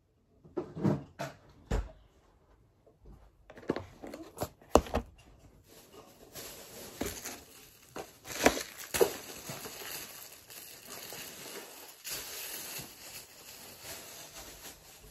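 Plastic packaging crinkling and rustling, with several sharp knocks and clatters as things, among them a plastic takeout container, are set down on a desk. From about six seconds in the rustling turns into a steadier hiss.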